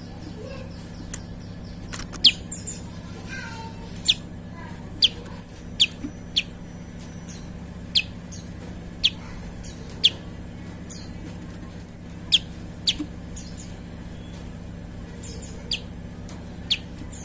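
Prinia calling: a series of short, sharp, high notes, each a quick downward sweep, about one a second. A steady low hum runs underneath.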